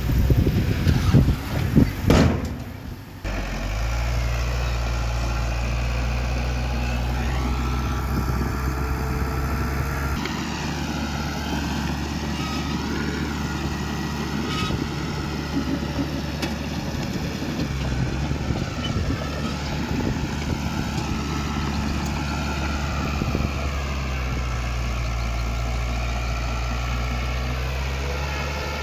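Heavy diesel earthmoving machinery running steadily after a few seconds of loud, uneven noise at the start; the engine note shifts slightly a few times.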